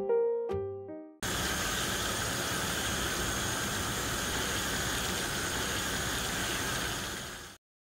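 Water boiling steadily in an aluminium saucepan on a gas stove, a continuous bubbling hiss that starts about a second in and cuts off suddenly near the end. It follows the last fading notes of a piano jingle.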